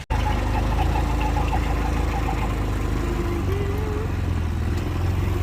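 A vehicle engine running steadily at low revs, after a brief sudden dropout at the very start. Faint wavering tones sound above it.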